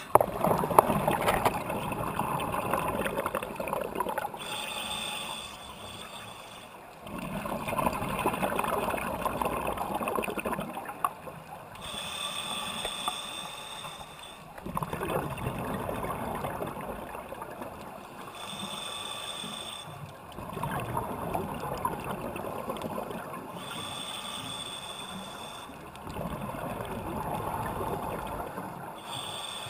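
Scuba diver breathing through a regulator underwater, in a steady cycle about every five seconds. A short hissing inhale alternates with a longer, louder rush of gurgling, crackling exhaled bubbles.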